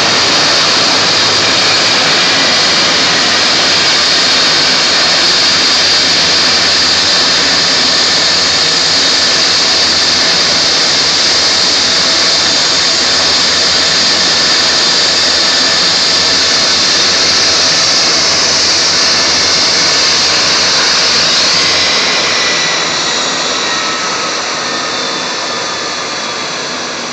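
Eurocopter EC135 helicopter running on the ground with its rotor turning: a loud, steady twin-turboshaft whine over rotor noise. About 22 seconds in, the sound begins to drop away steadily.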